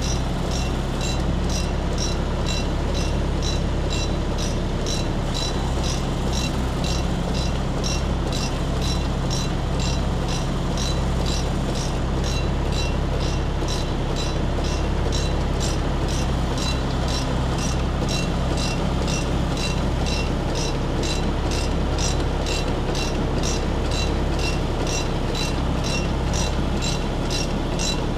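John Deere tractor engine running steadily under load while pulling a forage wagon picking up grass for silage, with a regular mechanical clicking about two to three times a second over the engine drone.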